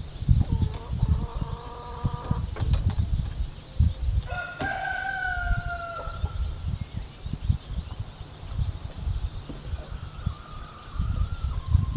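A rooster crowing: one long call about four seconds in that sags slightly in pitch, with shorter fowl calls before it and near the end. Gusty low rumble of wind on the microphone runs underneath.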